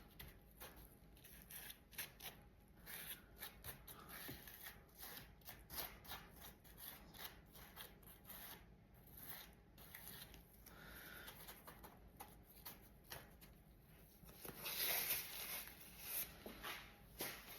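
Faint, irregular scraping and crinkling from hands at kitchen work, with a louder rustling stretch about fifteen seconds in.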